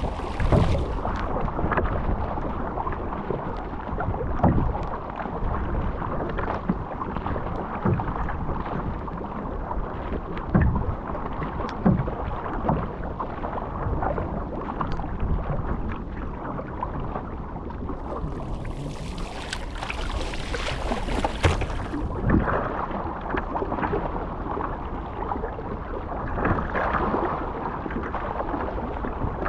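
Sea water rushing and slapping along a surfski's hull in choppy water, with paddle-blade splashes and small knocks every couple of seconds. There is a louder stretch of hissing spray about two-thirds of the way through.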